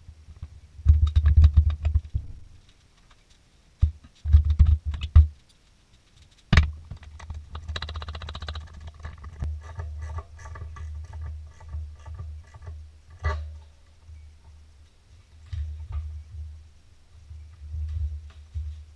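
Clicking and clatter of hands working on an ATV's wiring and connectors, with heavy low thumps in the first five seconds and two sharp clicks, about six and a half and thirteen seconds in. A steady low hum runs under the second half.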